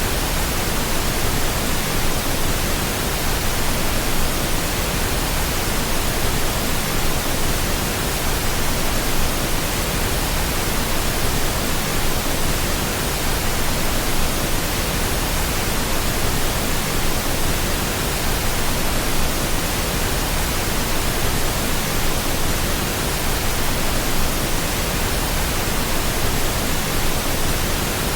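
Steady pink noise: a constant, even hiss spread across all pitches, unchanging throughout.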